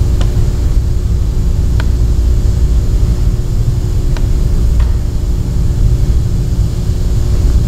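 Steady low rumble of running woodshop machinery, with a faint hum over it and a few light ticks.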